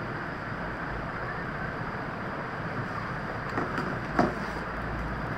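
Steady background noise in a small room, with two brief soft knocks about three and a half and four seconds in.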